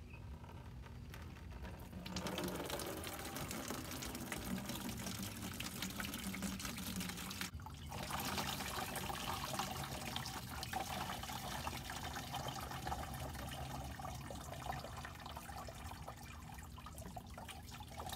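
Battery acid pouring out of the open cell holes of an upturned 12-volt lead-acid car battery into a plastic bucket. It is a steady splashing stream that starts about two seconds in and breaks off briefly a little before halfway.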